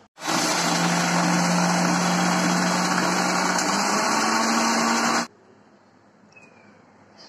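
Electric mixer grinder (mixie) running for about five seconds, blending a thick batter of ghee, milk, maida and gram flour, then switched off abruptly. Its motor hum steps up in pitch about four seconds in.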